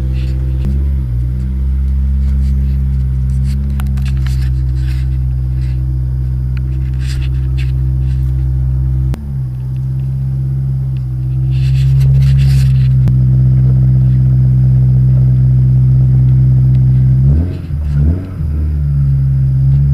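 Honda S2000's four-cylinder engine idling on a cold morning, a steady low note that dips and shifts about nine seconds in, then settles higher. Near the end it is blipped in a few short revs.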